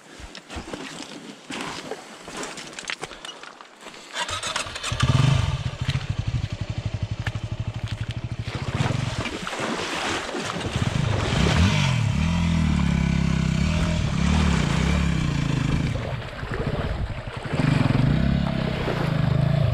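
Motorcycle engine coming in loud about four seconds in, after a few clicks and knocks, and running with its pitch rising and falling as it is revved.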